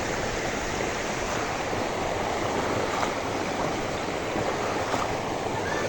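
Floodwater rushing: a steady, even rush of water.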